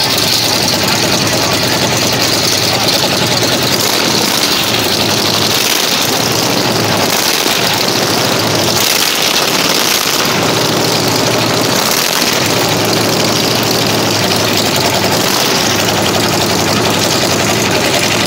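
Jacobs radial aircraft engine in a 1939 Plymouth pickup running loudly and steadily, putting out heavy smoke.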